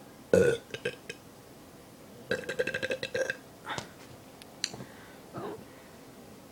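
A man burping: a short loud burp about a third of a second in, a few small mouth clicks, then a longer burp that comes out as a quick run of pulses for about a second, from roughly two to three seconds in.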